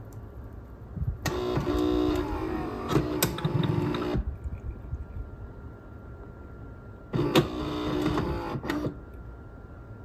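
Philips 3200 automatic espresso machine's internal mechanism whirring in two bursts, one of about three seconds and a shorter one of about a second and a half, with a pitch that shifts as it runs.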